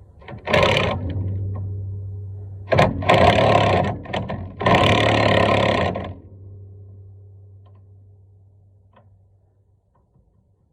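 Power impact wrench running in three bursts, a short one and then two longer ones, to break loose and spin off two bolts on a 1969 Chevrolet C10's front brake assembly. A low hum underneath fades away after the last burst.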